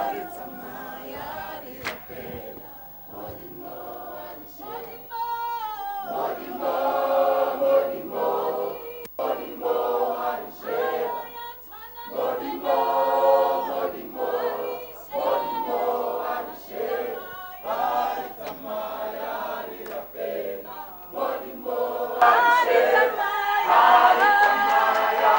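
Church worship-team choir of many voices singing together in phrases, unaccompanied, growing louder and fuller near the end.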